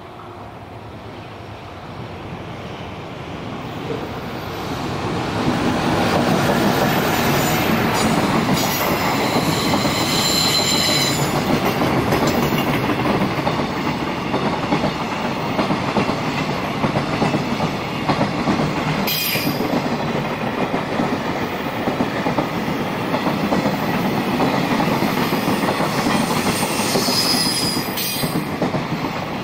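A JR Freight container train passes close by. It grows louder over the first six seconds as the locomotive comes up, then gives a steady clatter and rumble of container wagon wheels over the rails. There are brief high squeals about ten seconds in and again near the end.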